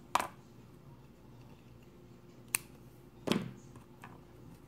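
Three short, sharp clicks from handling a crochet hook and yarn: one right at the start, one about two and a half seconds in, and one soon after. A quiet background lies between them.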